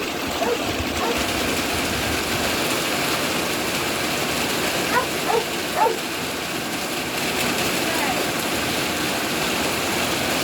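Steady rain falling and spattering, blown onto a wooden step or deck. About five to six seconds in, three short high-pitched squeaky calls sound over it.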